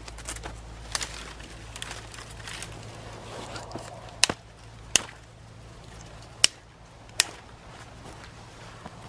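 Four sharp, loud knocks in the second half, in two pairs, with light rustling and scuffing around them.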